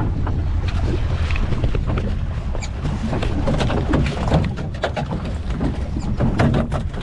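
Wind rumbling on the microphone and the boat running, with short clicks and rattles from a spinning reel being cranked to bring in a hooked fish. The rumble eases about halfway through.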